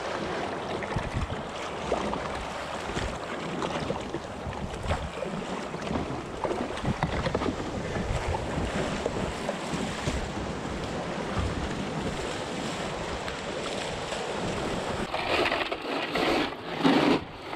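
Wind buffeting the microphone over water splashing and sloshing around a paddled kayak. Near the end this gives way to choppy rattling and crunching of ice as hands dig fish out of an ice-filled cooler.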